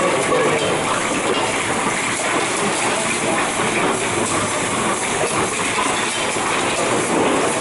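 JC RS 8 rotary bottle-capping machine running: transparent bottles clatter and clink along the conveyor and through the star wheel as caps feed in, with a continuous hiss under the steady rattle.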